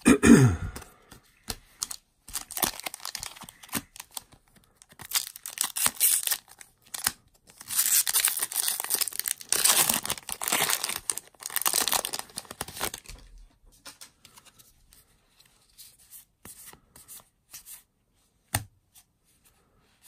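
Foil booster-pack wrapper being torn open and crinkled by hand, crackling for several seconds, followed by quieter rustling of cards being handled. A short loud falling sound comes at the very start, and a single click comes near the end.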